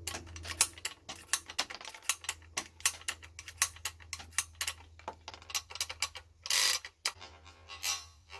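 The action of a Heritage Rough Rider .22 single-action revolver carbine being worked by hand: many quick, irregular metallic clicks of the cylinder turning at half cock, with a brief rattle about six and a half seconds in.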